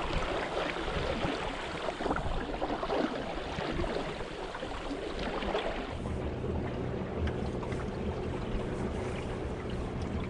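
Water rushing and splashing along the hull of a small wooden sailing canoe under sail in choppy water, with wind on the microphone. About six seconds in, the splashing drops back to a duller, steadier low rumble.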